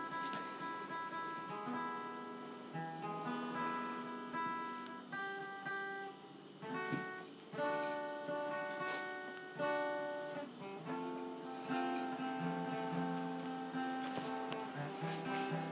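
Acoustic guitar music: a melody of plucked notes that start sharply and ring out.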